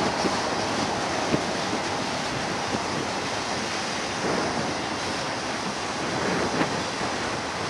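Double-stack container freight train rolling past close by: a steady rush of wheel and rail noise with a few sharp clicks from the wheels.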